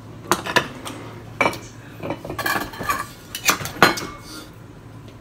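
Cutlery and steamed oyster shells clinking and knocking against plates and bowls as food is served at a table: a handful of separate sharp clinks, the loudest a little under four seconds in.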